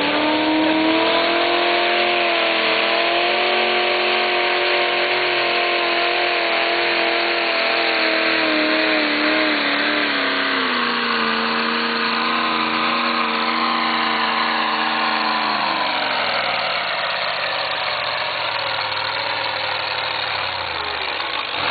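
Competition pulling vehicle's engine run hard down the pull track with the weight sled: it holds a high pitch that slowly sags under load, drops a step about ten seconds in, then winds down around sixteen seconds in, leaving a lower rumble.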